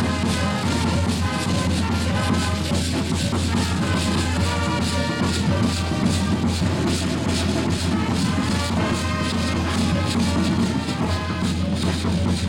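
Live music for a traditional danza: a large drum beating a steady rhythm under a simple repeating melody, with a quick, even rattling.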